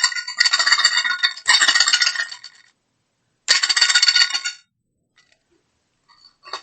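Homemade queixada (vibraslap) made from a Yakult bottle, a cork and a wire coat hanger, struck so it gives a buzzing metallic rattle. It is struck twice in quick succession near the start and once more about three and a half seconds in, and each rattle dies away within about a second.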